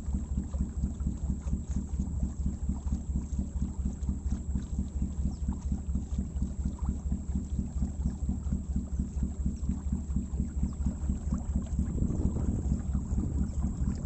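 Motorboat engine running steadily with a rapid, even low throb, with some water noise against the hull.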